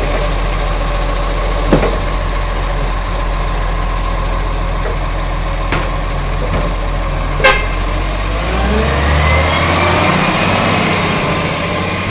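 Side-loading garbage truck running with a steady mechanical hum while its automated arm handles a wheelie bin, with a few sharp clanks, the loudest about two-thirds of the way in. Then the engine revs up in rising pitch as the truck pulls away.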